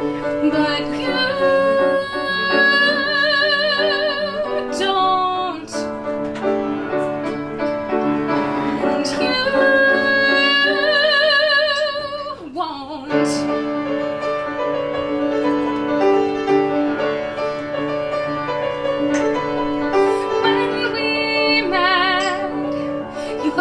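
Woman singing a slow ballad in long held notes with wide vibrato over piano accompaniment. Around the middle the voice stops and the piano plays on alone, and the voice comes back briefly near the end.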